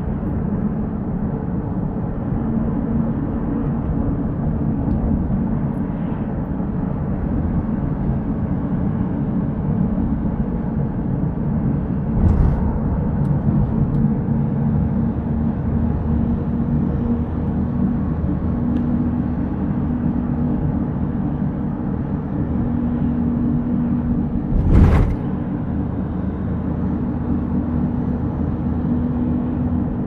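Car driving along a road: steady engine and tyre noise with a low hum. Two brief thumps stand out, one about twelve seconds in and a louder one about twenty-five seconds in.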